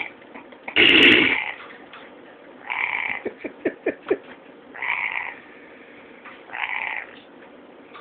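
Novelty fart coin bank playing fart noises through its small speaker, set off by a rainbow lorikeet poking its tongue into the coin slot. A loud one comes about a second in, then several shorter ones spread through the rest.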